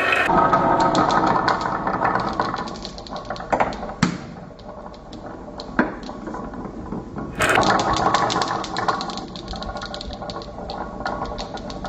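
A group of glass marbles rolling and clattering through carved wooden serpentine tracks, a dense rapid clicking as they knock against each other and the wood. The clatter is loudest at the start and again about seven seconds in, with a few sharp single knocks in between.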